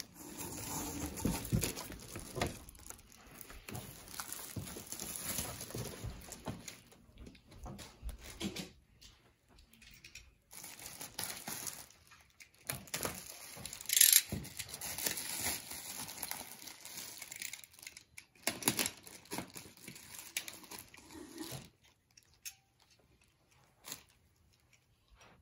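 Packing material being handled and pulled off a massage chair side panel: irregular crinkling, rustling and tearing with scattered knocks and scrapes, and one louder knock about 14 seconds in. It goes quieter for the last few seconds.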